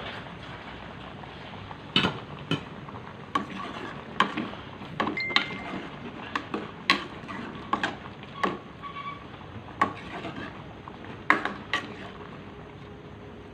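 Metal ladle stirring in an aluminium pan of simmering broth: a string of irregular clinks and knocks against the pan from about two seconds in until near the end, over a steady bubbling hiss.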